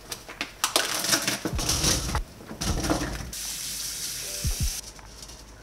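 Kitchen cooking-prep sounds: a run of clattering and rustling from dishes and utensils, then water running from a tap for about a second and a half, starting and stopping abruptly, with a few light knocks near the end.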